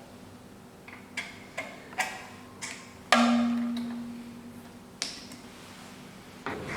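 Short clicks and knocks of parts being handled and fitted on a key cutting machine, about five light ones, then a louder knock about three seconds in that leaves a low ring fading over about two seconds, and one more click.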